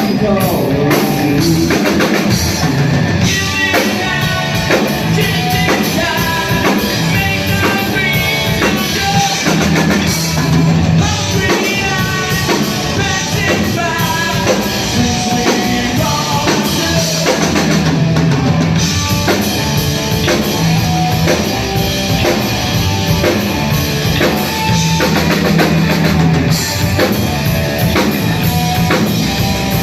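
Live rock band playing loudly with a full drum kit, at a sound check.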